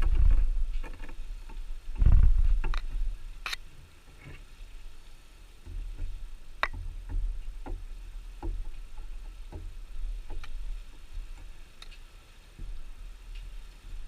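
Scattered sharp clicks and light knocks over a low rumble, with the loudest rumbling bursts at the start and about two seconds in.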